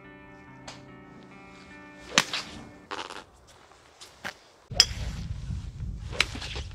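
Background music ends about two seconds in, then golf clubs strike balls on a driving range: several sharp cracks, three of them loud. A low rumble comes in near the middle.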